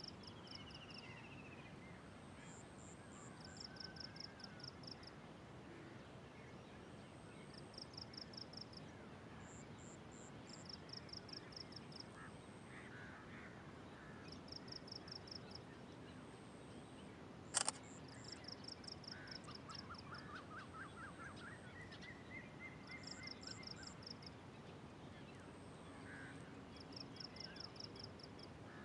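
Faint rural dawn ambience: a high, pulsed chirping repeats every three to four seconds, with a few bird trills and calls among it. A single sharp click sounds a little past halfway.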